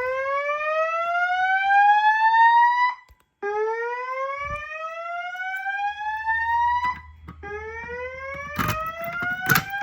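Notifier voice-evacuation fire alarm sounding its slow whoop alert tone between evacuation messages. Each tone rises steadily in pitch for about three and a half seconds, and it repeats with short gaps. A couple of sharp knocks come near the end.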